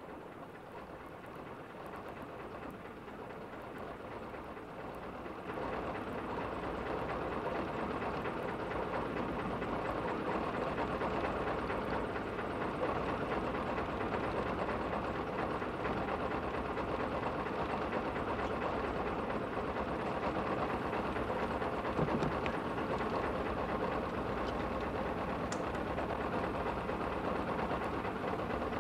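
A motor launch's engine running steadily at sea. It swells up over the first several seconds and then holds even, with one brief knock about two-thirds of the way through.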